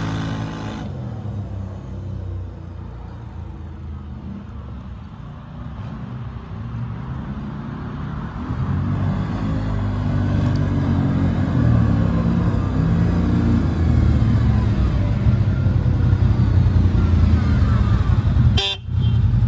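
Engines of two Russkaya Mekhanika RM 800 ATVs running as the quads drive away, fading with distance, then growing louder as they ride back and pull up close. There is a brief dropout near the end.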